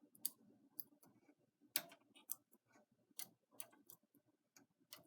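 Light, irregular metallic clicks of hand work on a knitting machine's needle bed: the latch tool and needles being worked during a latch tool cast on.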